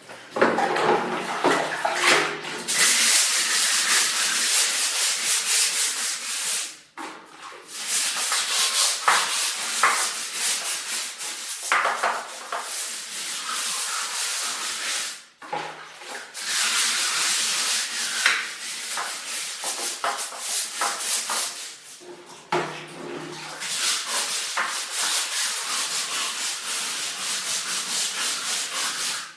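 Stiff scrubbing brush rubbed back and forth on a bathroom surface in quick repeated strokes, a rough scratchy sound, with short pauses about every seven seconds.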